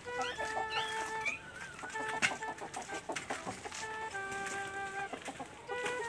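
Domestic chickens clucking and calling several times, with light background music behind them.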